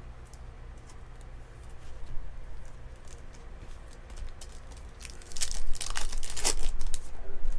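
Foil trading-card pack wrapper crinkling and tearing open, a run of crackling rustle about five seconds in, after a few faint ticks of card handling. A steady low hum runs underneath.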